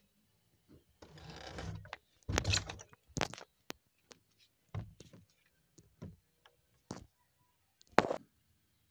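Handling noise of a phone being moved and set down: a rustle against the microphone about a second in, then a series of short knocks and bumps, the sharpest near the end as it comes to rest on a wooden table.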